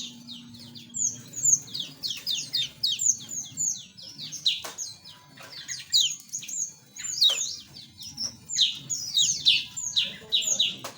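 A flock of small aviary birds chirping and twittering continuously, many short, quick, downward-sweeping calls overlapping.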